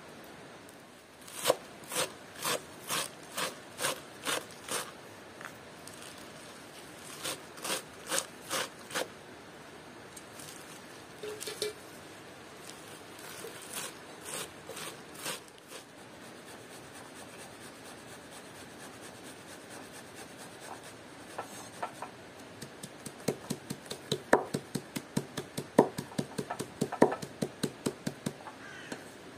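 Knife chopping vegetables on a cutting board. It makes runs of evenly spaced cuts at about two a second, then pauses, then chops faster and more densely in the last several seconds.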